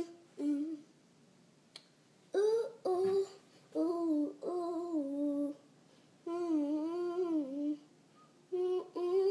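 A female voice humming a made-up tune without words, in short phrases with pauses between them and pitch sliding up and down.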